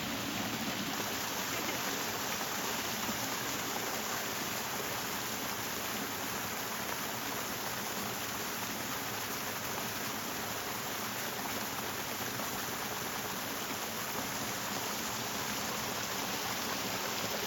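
Waterfall rushing, a steady even roar of falling water with no change in level.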